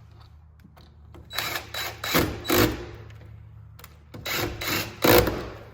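Power drill run in short trigger bursts on a door lock, in two groups of pulses with a short pause between them.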